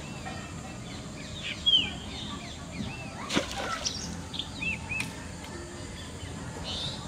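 Small birds chirping with short, repeated arched calls over a low background noise, with one brief swish about three and a half seconds in.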